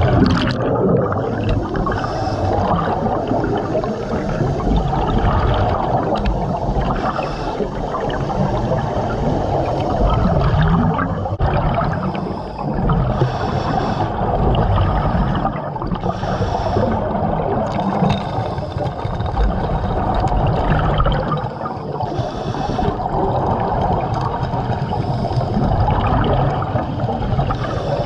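Continuous gurgling and bubbling of water heard underwater, with a steady low rumble, and a few brief hissing surges of bubbles.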